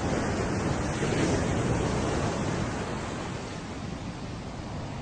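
Waterfall's rushing water: a steady, even noise that eases a little in the second half.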